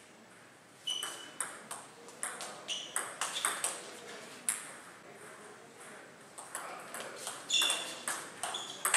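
Table tennis ball being struck by paddles and bouncing on the table in a rally: a quick series of sharp ticks and pings. It starts about a second in, thins out around the middle, and picks up again in a dense run near the end.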